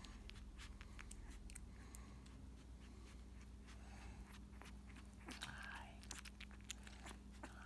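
Faint, irregular wet clicks and smacks of a newborn puppy sucking on a feeding bottle, over a low steady hum.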